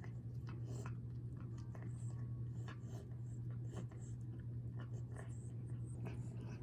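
A steady low electrical hum with irregular small clicks and scratchy ticks over it.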